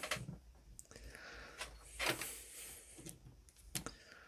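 Faint handling noise: a few light knocks and scrapes from hands gripping and working at the head of a small metal model engine, the clearest knock about two seconds in.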